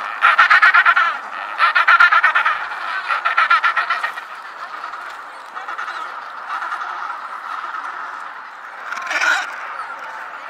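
Gentoo penguins braying: loud, rapidly pulsed goose-like calls in bouts of about a second, several in a row at first, then softer calling with one more loud call near the end.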